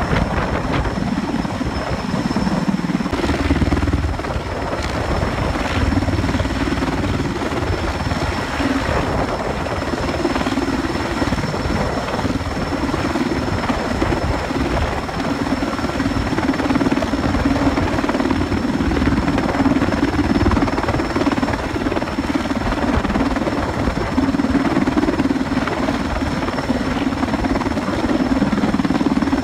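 Sikorsky S-64 Skycrane twin-turbine heavy-lift helicopter hovering with an underslung load, its rotors and engines running loud and steady, with a thin high whine held over the rotor noise.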